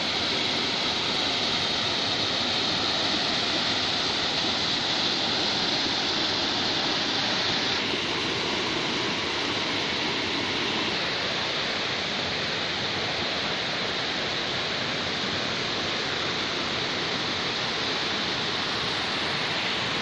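Steady rushing of a rocky jungle stream, water pouring over stone into a rock pool.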